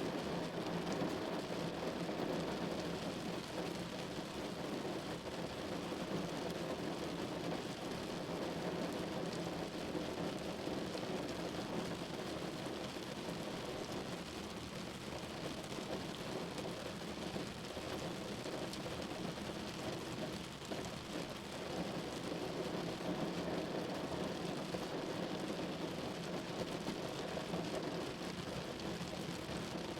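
Rain falling steadily, an even unbroken patter of drops.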